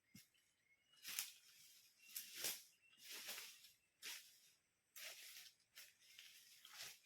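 Faint rustling of leaves and twigs in about eight irregular swishes, each a fraction of a second long.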